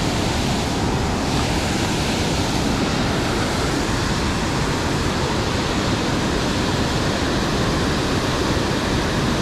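River water rushing steadily: a constant, even hiss that holds level.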